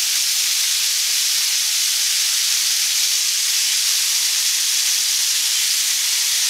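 Seasoned raw chicken cutlet strips sizzling in hot extra virgin olive oil in a skillet, a steady high hiss.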